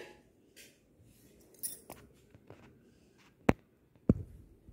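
Stainless steel idli cooker parts clinking and knocking as they are handled: a few scattered light clicks, a sharp metallic click about three and a half seconds in, then a duller knock shortly after.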